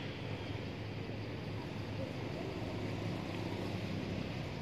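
Steady outdoor background noise: an even low rumble with a light hiss on top, with no distinct event.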